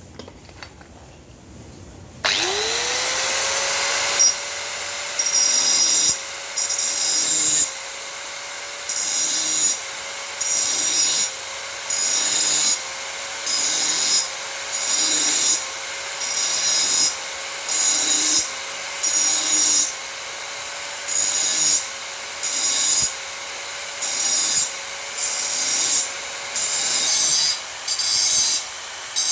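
Hand-held electric power cutter spinning up about two seconds in and running steadily, biting into the thin sheet metal of an old filter canister in short repeated passes about once a second.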